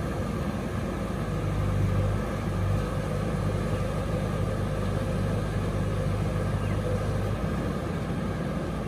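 Diesel engine of a JCB 3DX backhoe loader running under load, a steady low drone that grows louder about a second in and eases off near the end, over the rush of a fast-flowing river.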